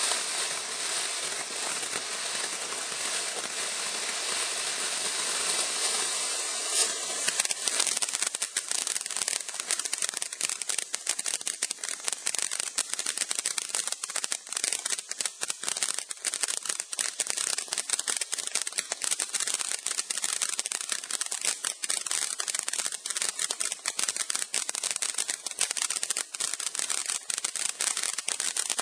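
A lit firework hissing steadily for several seconds, then crackling with a dense, rapid stream of sharp pops that goes on for over twenty seconds.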